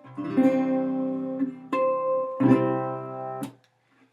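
Republic Resolian 39 resonator guitar strumming a few chords that ring out, the strings damped so the sound cuts off suddenly about three and a half seconds in.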